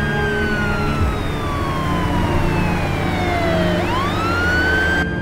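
Emergency vehicle siren wailing: a high held note that slowly falls in pitch for about four seconds, then sweeps quickly back up near the end and holds.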